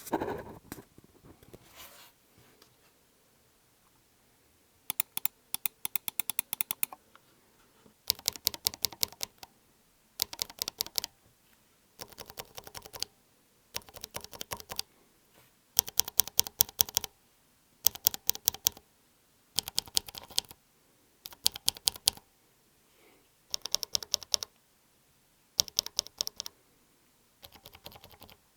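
Bare Akko mechanical keyboard switches on a switch tester, pressed rapidly without keycaps, one switch after another. Each comes as a short burst of fast clacks, about a dozen bursts with a second or so of quiet between them, some switches clearly quieter than others. A brief knock of handling comes at the very start.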